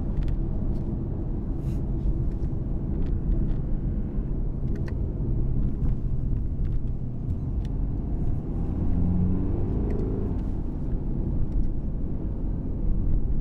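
Interior sound of a BMW 420d being driven: its 2.0-litre four-cylinder turbodiesel and road rumble heard from inside the cabin, the engine note rising for a couple of seconds past the middle as it pulls harder.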